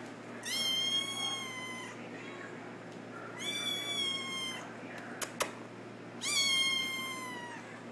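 Kitten meowing: three long, high-pitched cries a few seconds apart, each falling slightly in pitch. A few sharp clicks sound about midway.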